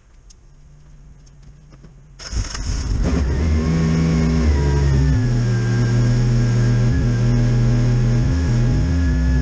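Mazda Miata's engine catching suddenly about two seconds in after a low hum, then running at a steady idle whose pitch eases slightly as it settles. This is the first start after resealing the oil filter and oil-cooler feed line, run to check for an oil leak.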